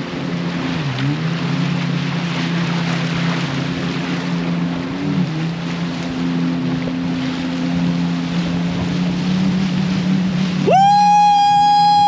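Outboard motor of a motorized river canoe running steadily through rapids, its pitch dipping briefly early on, with water rushing and splashing against the hull. Near the end music comes in with a held note.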